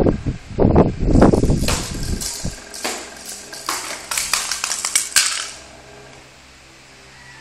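Loud low rumbling for the first two seconds or so, then a quick run of sharp clicks and rattles of small hard objects knocking together, stopping about five and a half seconds in.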